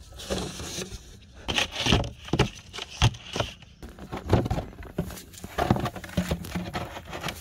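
Large plastic bottles being handled and set down in a plastic tub: an irregular run of hollow knocks and scrapes with rustling plastic, the loudest knocks about two and three seconds in.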